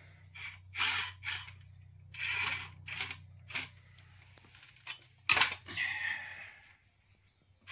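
Electric motor driving the pinion and spur gear of a combat robot's lifter arm in short bursts, the gears whirring, over a low steady hum. About five seconds in, a louder clatter as the arm flips the small test robot up.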